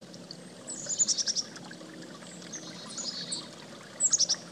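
Small songbirds calling in three short bursts of high chirps and quick trills, over a steady background hiss.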